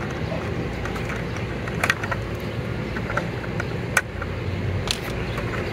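A few short, sharp plastic clicks, the clearest about four seconds in, as the body shell of an Axial SCX24 Chevy C10 RC crawler is handled and pulled off its chassis, over a steady low background rumble.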